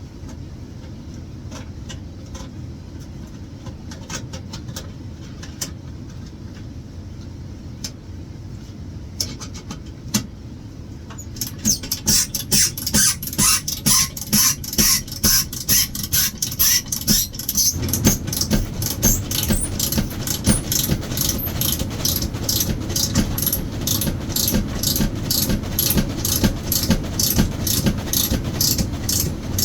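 Manual knockout punch being cranked through a sheet-metal electrical enclosure: after scattered clicks, a steady run of sharp metallic clicks and creaks about two to three a second starts about twelve seconds in as the punch is drawn tight with a wrench, and gets heavier partway through as the cutting blade bites into the steel.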